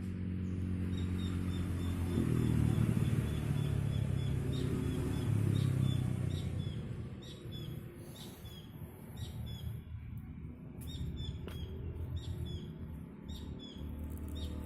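A small bird chirping over and over in short, high notes, quickly at first and then more spaced out, over a low motor drone that swells for a few seconds and then fades.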